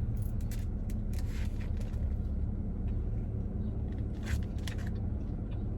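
Close-up chewing of a mouthful of egg-and-toast sandwich, with scattered wet mouth clicks, over a steady low rumble.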